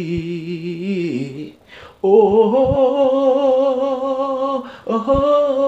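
A man singing long wordless held notes with a wavering vibrato, in three phrases broken by quick breaths about two seconds in and near the end.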